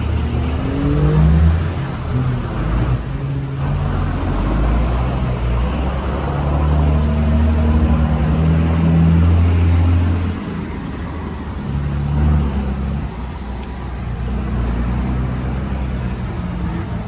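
City street traffic: motor vehicle engines running close by with a deep hum, swelling as they accelerate and easing off about ten seconds in, with another brief swell soon after.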